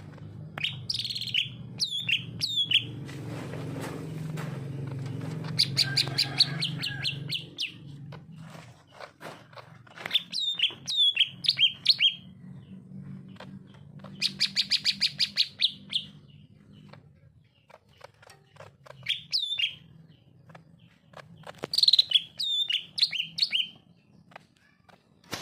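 Green leafbird (cucak ijo) in full song: phrases of fast repeated notes mixed with sharp downward-sweeping whistles, each lasting about two seconds, with short pauses between them.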